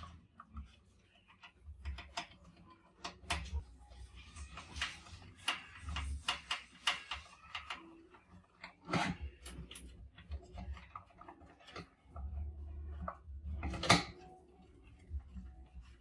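Mice scrabbling and climbing in a glass-and-wire-mesh trap box: irregular scratching, rustling and light clicks of claws on mesh and glass, with one louder knock near the end.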